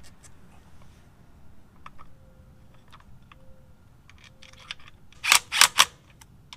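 Hand ratchet wrench clicking as the bolts of a Harley's primary chain tensioner are run in: scattered light ticks, then three quick, loud ratcheting strokes near the end.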